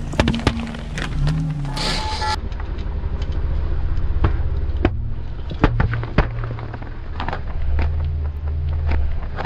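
Car tyre rolling slowly over aluminium drink cans, the engine running low underneath: the cans crack, crunch and pop open under the weight, with many sharp snaps spread through.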